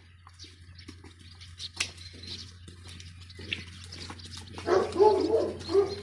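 Herd of cattle walking on a gravel road, hooves crunching and clopping on the loose stones, with birds chirping. Near the end a loud wavering call sounds for about a second.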